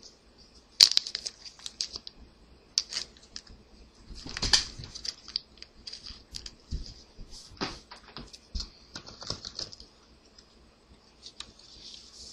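Trading card and foil pack wrappers being handled by hand: irregular rustling, scraping and small clicks, with a few sharper snaps about a second in and about four and a half seconds in.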